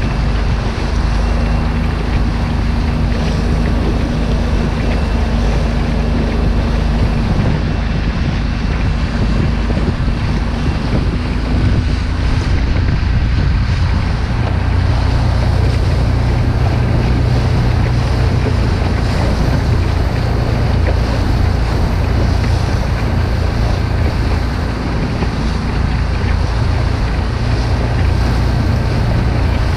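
Outboard motor of a rigid inflatable boat running steadily under way, with wind buffeting the microphone and water rushing and slapping against the hull.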